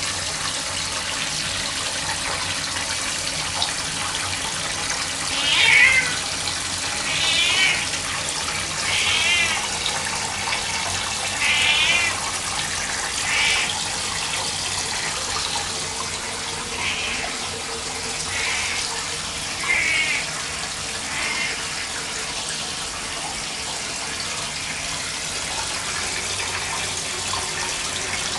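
Domestic cat meowing repeatedly, about nine short wavering meows a second or two apart, over the steady hiss of running water from a tap.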